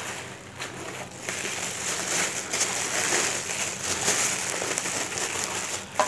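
Thin plastic wrapping bag crinkling and rustling as a small satellite speaker is pulled out of its packing and unwrapped, picking up about a second in.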